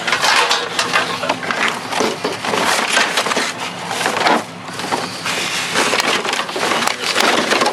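Rummaging through a pile of discarded household junk: dense clattering, crunching and rustling as items are moved and pulled out, with a brief lull about four and a half seconds in.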